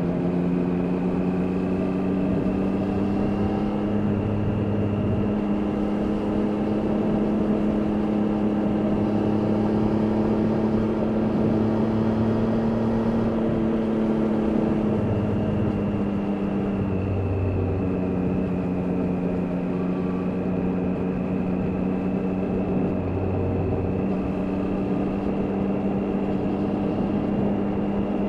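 Triumph Daytona 660's inline three-cylinder engine running at a steady cruise, its note drifting gently up and down, with a drop in pitch about seventeen seconds in.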